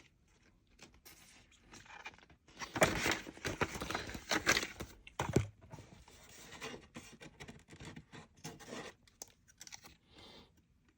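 Paper and packaging from a keyboard box being handled: irregular rustling and crinkling, loudest in a stretch of tearing-like rustle about three to five seconds in, then lighter scattered rustles and taps.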